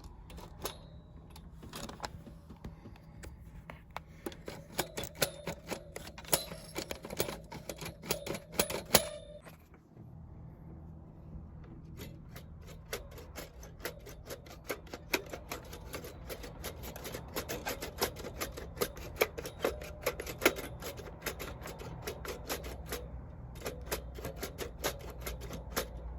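Rapid light clicking and tapping from the opened key and lever mechanism of a Paolo Soprani chromatic accordion as it is handled and taken apart. The clicks pause briefly about nine seconds in, then come faster, several a second.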